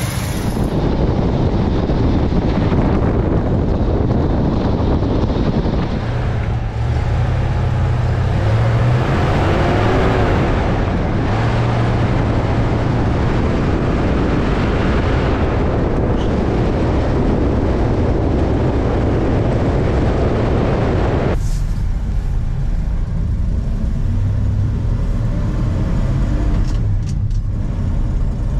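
1972 Ford F250 4x4 pickup driving on a road, its V8 engine running under steady road and wind noise. About two-thirds of the way in the sound changes suddenly and turns more muffled, heard from inside the cab.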